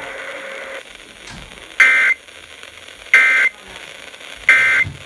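Three short bursts of Emergency Alert System (SAME) digital data tones, about 1.3 seconds apart, over faint radio hiss: the end-of-message code that closes a weather radio alert.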